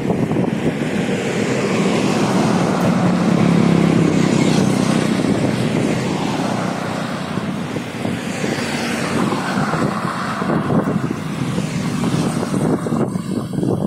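Highway traffic passing close to the roadside: a continuous rush of tyres and engines that swells as each vehicle goes by, loudest about four seconds in. A truck and then a motorcycle pass close in the second half.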